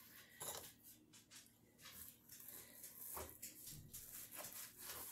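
Near silence: kitchen room tone with a few faint soft knocks of handling at the counter.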